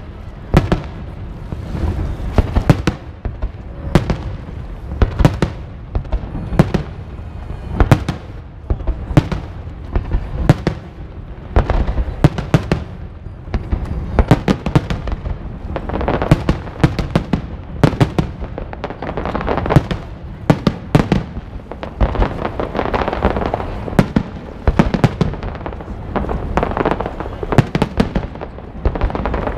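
Aerial firework shells bursting overhead in a continuous display: many sharp bangs, one to several a second, over a steady low rumble, growing denser in the second half.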